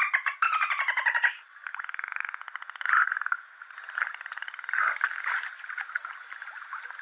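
Dolphins chattering: rapid clicking pulse trains and short gliding squeaks. The sound is thin and cut off in the bass, as heard through a telephone.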